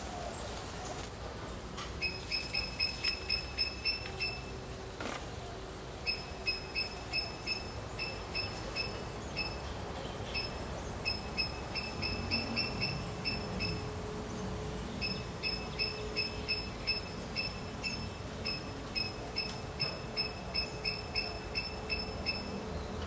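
Rapid trains of short, high chirps, about five a second, repeated in bouts of a few seconds with brief pauses between: the calls of a small animal in the pond vegetation.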